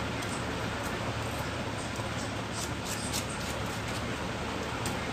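Butter knife scraping across bread, a run of short, light scratchy clicks over a steady background hum.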